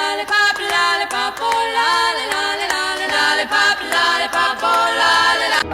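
Unaccompanied chant-like singing, voices moving between held notes.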